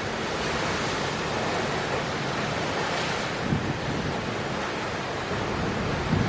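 Heavy storm surf on a rocky shore, a dense steady rush of breaking waves, with strong wind buffeting the microphone in low thumps about three and a half seconds in and again near the end.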